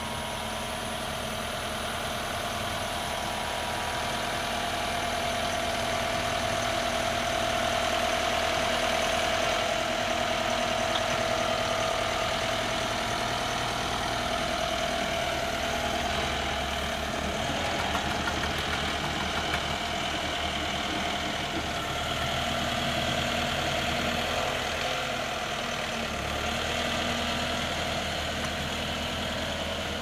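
Vermeer PD5R pile driver's engine running steadily, with a steady whine over the engine note that swells over the first several seconds and then holds.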